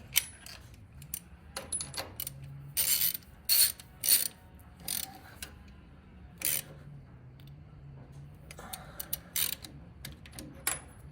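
Socket ratchet working a spark plug out of or into the engine head: a run of ratchet clicks and short metallic clatters, loudest about three to four seconds in.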